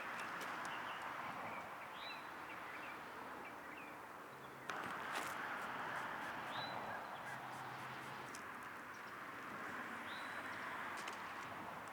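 Steady rush of a flood-swollen creek's current, with a bird giving a short rising call every few seconds and a single sharp click about five seconds in.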